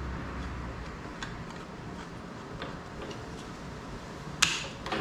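Ratchet handle of a strap frame clamp being worked to loosen the strap: a few light clicks, then a sharp, much louder click near the end and another just after.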